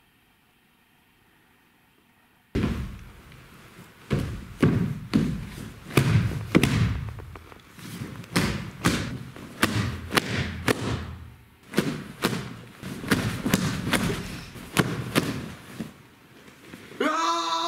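A run of heavy, dull thumps, roughly two a second, starting suddenly about two and a half seconds in, plausibly from the padded sumo suits. A sustained voice-like shout starts right at the end.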